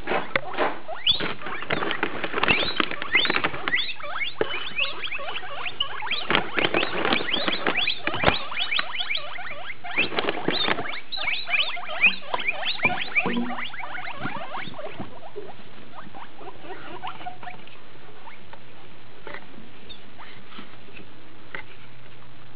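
Guinea pigs wheeking for food: many shrill, overlapping whistle-like calls in quick succession, excited at feeding time. After about 15 seconds the calls thin out to only an occasional squeak.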